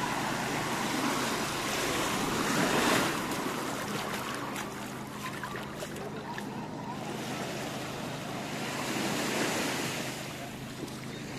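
Small sea waves washing onto a sandy beach, swelling twice, about three seconds in and again near the end.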